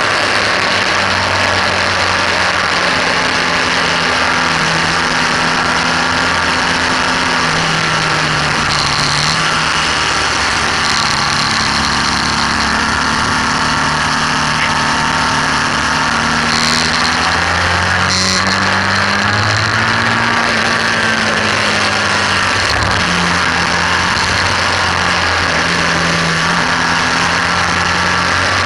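BMW R1200S's air/oil-cooled boxer-twin engine running hard on track, its pitch stepping and sliding up and down with throttle and gear changes through the corners. Heavy wind rush over the fairing-mounted microphone sits on top of the engine throughout.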